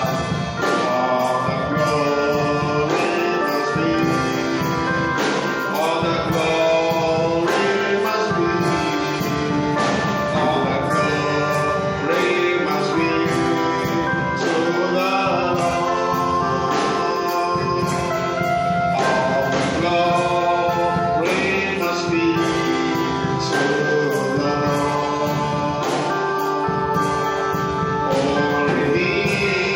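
Gospel worship music: several voices singing together over live instrumental accompaniment with a steady beat.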